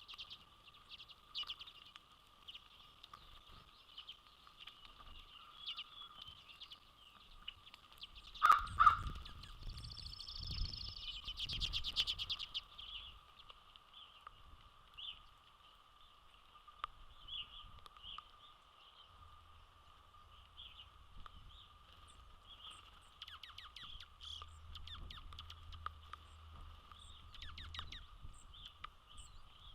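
Birds chirping and calling at a backyard feeder, with one loud knock about eight seconds in followed by a few seconds of busier chatter. A steady faint whine runs underneath.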